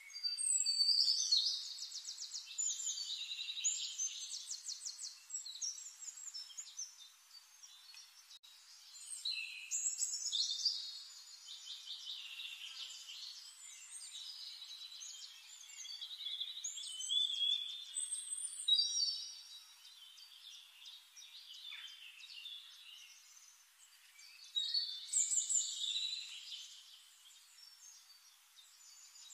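Forest songbirds singing: four bursts of high, rapid warbling song, a few seconds each, with quieter calls in between.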